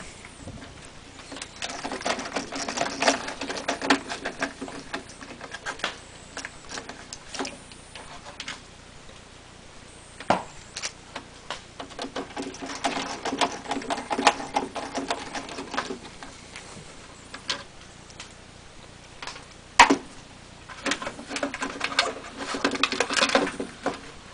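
Cordless drill-driver running in four bursts of a few seconds each, backing screws out of sheet metal, with a couple of sharp clicks in between.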